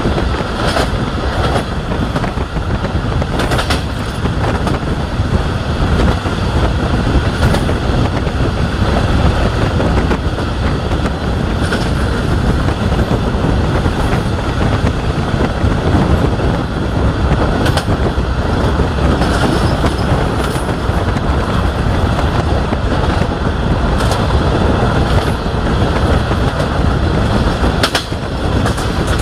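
Wheels of a DH2 diesel-hydraulic railcar running at speed over jointed track: a loud, steady rumble with sharp clicks every few seconds as the wheels cross rail joints.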